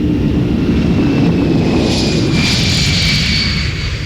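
Boeing 747 jet engines running: a deep rumble under a high whine that drifts slightly down in pitch, with a rush of hiss that swells about two seconds in and eases near the end.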